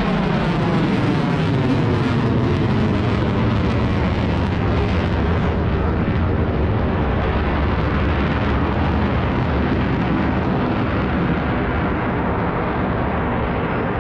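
Jet aircraft flying past, a loud, dense jet noise whose pitch sweeps downward in the first couple of seconds as it goes by, then holds steady and eases slightly toward the end.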